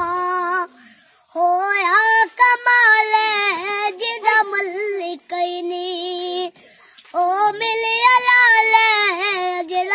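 A young boy singing a naat unaccompanied, in long held notes with a wavering, ornamented pitch. He breaks briefly for breath twice, about a second in and again past the middle.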